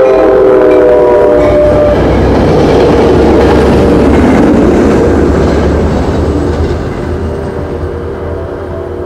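NJ Transit train passing over a road level crossing: its horn sounds and cuts off about two seconds in, then the wheels rumble and clatter over the rails and fade after about six seconds as the train moves away.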